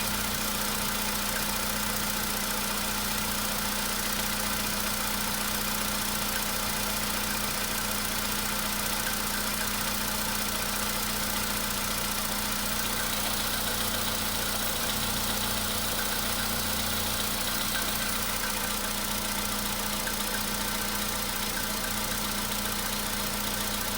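Volkswagen Polo Sedan's 1.6-litre CFNA four-cylinder petrol engine idling steadily, warming up after a cold start. A faint tapping runs through it; the cold-start knock has almost gone.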